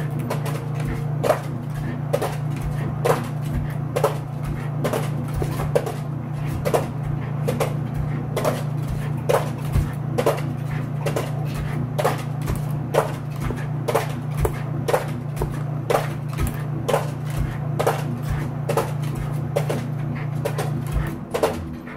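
Smooth fox terrier jumping over and over, her landings and claws making sharp clicks and knocks a little more than once a second. A steady low hum runs underneath and stops shortly before the end.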